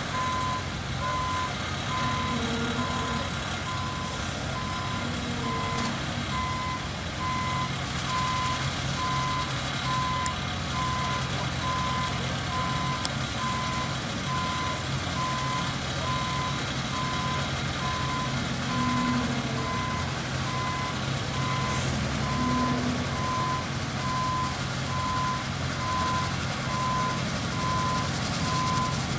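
Reversing alarm on a heavy truck beeping steadily about once a second, over the low, steady running of its diesel engine.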